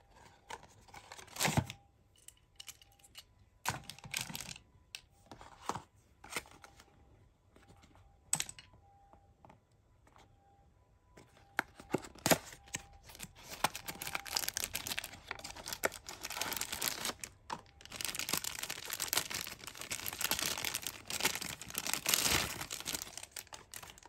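Tomica toy and its cardboard box being handled: scattered clicks and short scrapes of the plastic and die-cast toy, then, about halfway through, a long stretch of scraping and rustling cardboard and plastic as the box is opened and the drag racer toy pulled out.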